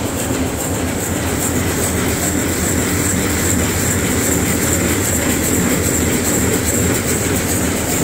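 Machinery running steadily: a continuous rattling rumble with a constant high whine over it.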